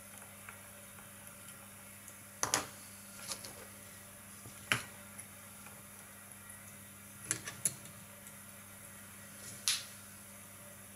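Scattered light clicks and taps of fly-tying tools and materials being handled at the vise, with a close run of three about seven seconds in, over a steady low hum.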